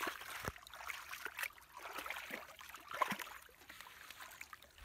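Hands sloshing and groping through muddy water in a shallow trench, with irregular small splashes and trickling.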